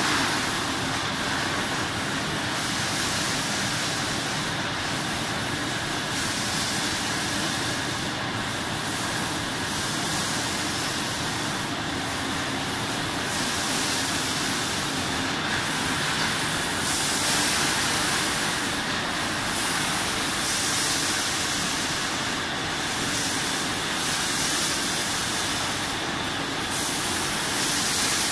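Sidel SBO 10 stretch blow moulding machine running: a steady mechanical noise with continuous compressed-air hissing. The hiss dips briefly about every three and a half seconds.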